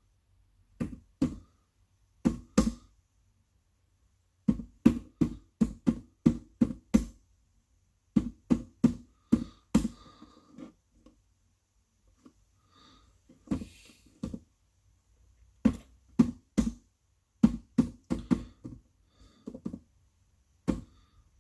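A series of sharp knocks or bangs in irregular clusters of two to six, about three a second within a cluster, with short pauses between clusters.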